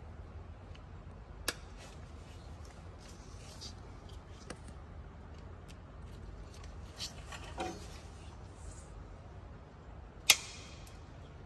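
Hands working nylon air line and plastic push-in Y fittings: a few faint clicks and handling noises over a low hum, with one sharp click about ten seconds in.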